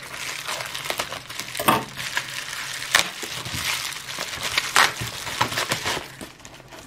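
Bubble-wrap pouch being cut with scissors and crinkled open by hand: a dense crackling rustle of plastic with a few sharper clicks, dying down near the end.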